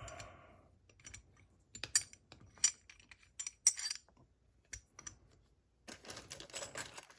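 Small metal parts of a disc detainer padlock clicking and clinking as the lock is being taken apart by hand. A metallic ring fades out in the first moment, then scattered sharp clicks follow, and a quick flurry of them comes near the end.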